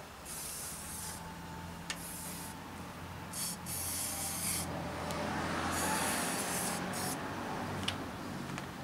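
Aerosol spray hissing in about five short bursts onto a bicycle handlebar, wetting the bar so a rubber grip will slide on.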